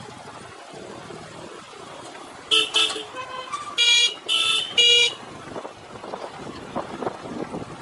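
A vehicle horn honking in a quick series of about five short blasts, with some change in pitch between them, over the steady rumble of riding and wind.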